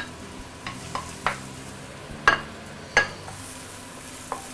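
Chopped ginger, garlic and fresh coriander sizzling in oil in a stainless steel wok while a wooden spatula stirs them. The spatula knocks sharply against the pan about six times, each knock ringing briefly, with the two loudest near the middle.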